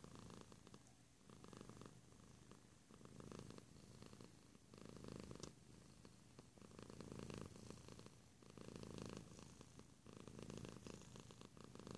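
Tabby cat purring softly close up, the purr swelling and fading with each breath about once a second.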